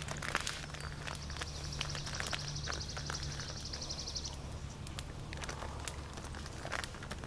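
Wood fire crackling with scattered sharp pops. From about one to four seconds in, a rapid high-pitched trill runs in the background.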